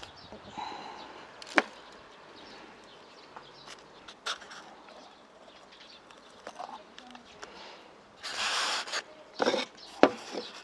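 Ostrich egg being handled and picked at in a styrofoam holder: scattered sharp clicks and taps of shell, the loudest about one and a half seconds in and again near the end, with a short rustle about eight seconds in.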